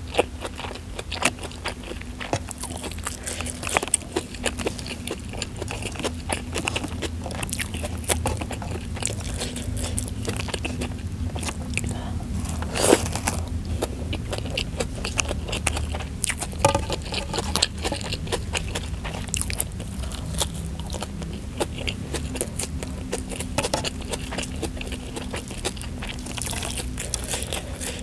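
Close-miked chewing and biting of rice, omelette and raw sambal matah, with many small crunchy clicks and one louder crunch about 13 seconds in.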